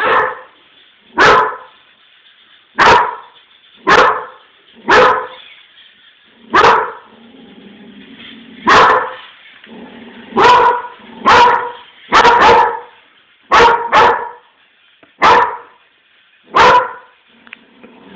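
A dog barking at a small wheeled robot: about fifteen loud, sharp barks, one every second or so.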